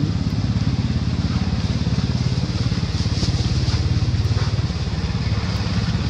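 A small engine running steadily, a low, even pulsing that holds through the whole stretch.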